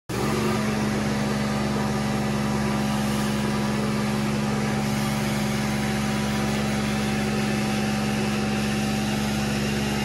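Sandblasting cabinet running: a steady motor hum with the even hiss of the air-and-grit blast inside the cabinet.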